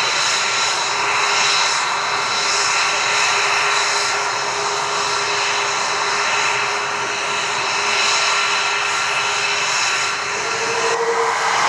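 Lockheed F-22 Raptor's jet engines running at idle on the ground: a steady roar with a high turbine whine layered over it. The tone shifts near the end.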